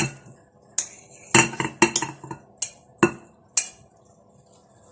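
Kitchen utensils and dishes clinking and knocking: about eight sharp clinks over the first three and a half seconds, then a lull.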